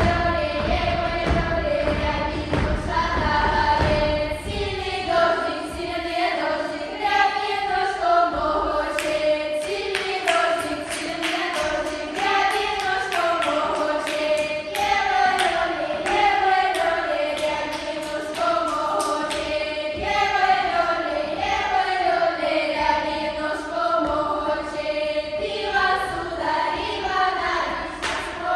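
A small ensemble singing a Russian folk dance song (plyasovaya) from Tula region, several voices together in village style. Low thudding sounds under the voices for the first few seconds, then stops.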